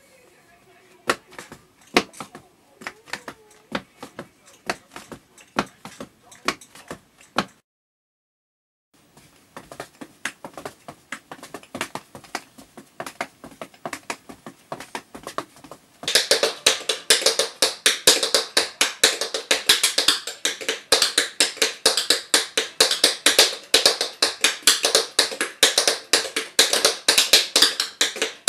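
Tap shoes' metal taps striking a hard floor in quick rhythmic runs of clicks. There is a short silent break about a third of the way in. From about halfway, the taps are much louder and come in dense, fast patterns.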